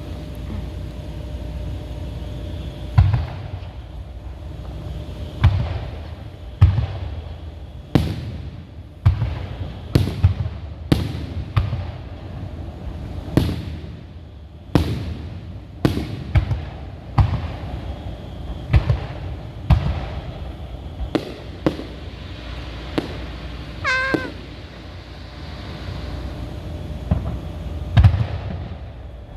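Fireworks show: shells bursting in a rapid irregular series of sharp booms, some with crackle trailing after, over a low continuous rumble. A brief wavering whistle-like tone sounds late on.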